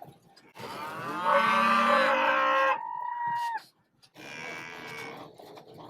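Angus cattle mooing: one long loud moo starting about half a second in, ending in a thinner higher held note, then a fainter moo near the end.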